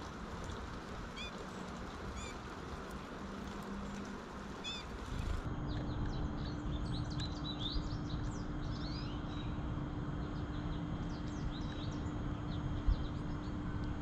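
Songbirds chirping over a steady rushing background noise: a few repeated short calls in the first five seconds, then, after an abrupt change in the sound, many quick high chirps over a faint steady low hum.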